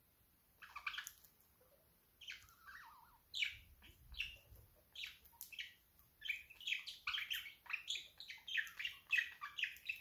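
Pet budgerigar chattering and warbling: a run of short, quick chirps that starts about half a second in and grows denser and more continuous in the second half.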